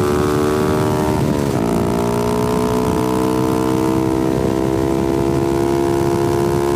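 Honda Grom 125cc single-cylinder engine and exhaust running under way. The engine note dips and breaks about a second and a half in, then comes back lower and climbs slowly and steadily.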